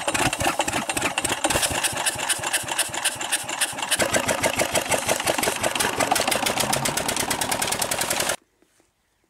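Petter diesel engine running at a fast, even chug, driving a tube-well pump. The sound changes character about four seconds in and stops abruptly about a second before the end.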